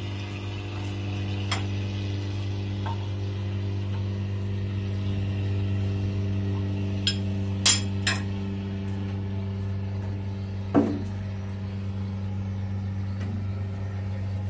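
Sharp metallic clinks of hand tools on a crane's air compressor as it is opened for an oil change: a few light clinks early, then a cluster of louder ones around the middle and one more a little later. Under them a steady low mechanical hum.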